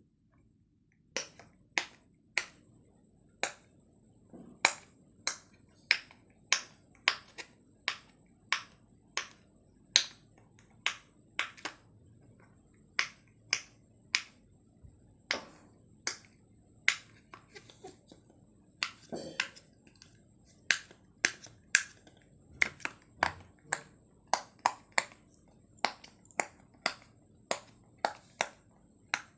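Pop-it silicone fidget toy, its bubbles pressed in one after another, each giving a sharp little pop, roughly one or two pops a second with a few short pauses.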